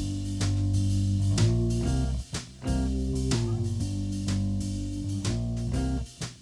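Instrumental music led by guitar, with bass and a steady beat; it breaks off briefly twice.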